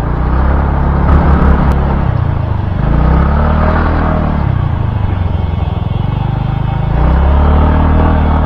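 Motorcycle engine running on the move, its pitch falling and rising twice as the rider eases off and opens the throttle, under a steady rush of wind and road noise.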